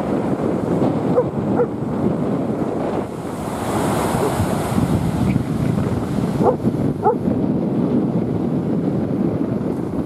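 Storm surf breaking and rushing up a sandy beach, with strong wind buffeting the microphone.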